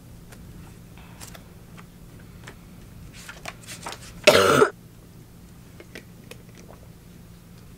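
One short cough about halfway through, from a woman sick with a cold and a tickle in her throat.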